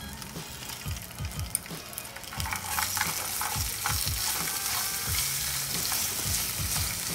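Shrimp and sliced garlic sizzling in hot oil in a nonstick frying pan while being stirred with a wooden utensil, with a few light clicks of the utensil against the pan. The sizzle gets louder about two and a half seconds in.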